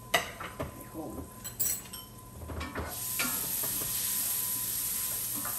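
Food sizzling in a skillet of sautéing green peppers on a gas stove, with a few clinks and knocks of kitchen utensils early on; about three seconds in, a louder steady sizzle sets in.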